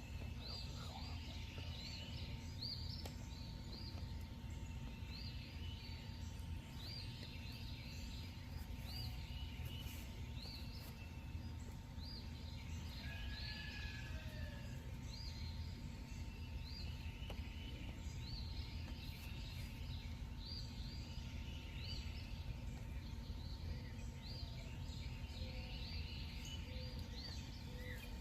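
Outdoor night ambience: many short high chirps repeating continuously over a low steady rumble, with a faint steady tone underneath.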